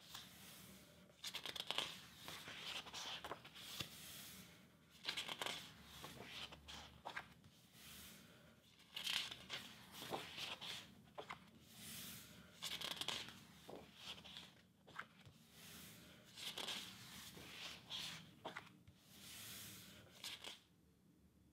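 Pages of a large hardcover book being turned by hand, one after another: paper rustles and swishes roughly every second or two, with a few light taps, stopping shortly before the end.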